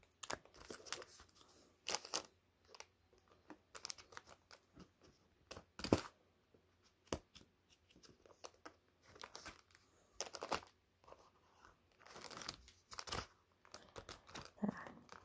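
Sheets of cardstock paper rustling and sliding against each other as they are leafed through by hand, in irregular swishes, a few of them louder.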